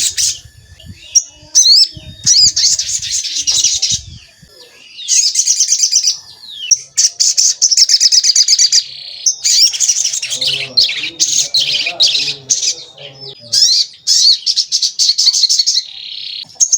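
A sogon songbird singing its 'cuit cuit' song: bursts of fast, high chirps repeated over and over, each burst lasting a second or two with short pauses between. Past the middle, a fainter, lower, evenly pulsing sound runs under the song for a few seconds.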